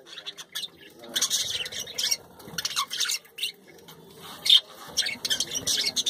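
A flock of budgerigars chattering: many quick, high-pitched chirps and squawks in an irregular stream, with one louder call about four and a half seconds in.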